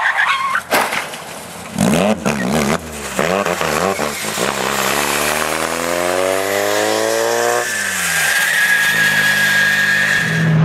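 Racing car engine accelerating hard, its pitch rising steadily for about four seconds, then dropping abruptly at a lift or gear change. A steady high whine carries on through the last couple of seconds. There are a few sharp knocks near the start.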